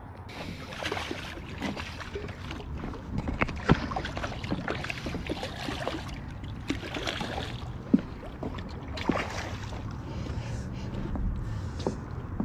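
A hooked largemouth bass splashing and thrashing at the water's surface while it is played on the line beside a dock. It makes a rough rush of broken water with many short, sharp splashes, the loudest a little under four seconds in and about eight seconds in.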